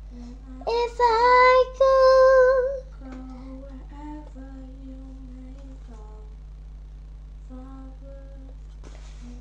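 A young girl singing unaccompanied: a few loud, held notes with a wavering pitch in the first few seconds, then singing quietly at a lower pitch. A steady low electrical hum runs underneath.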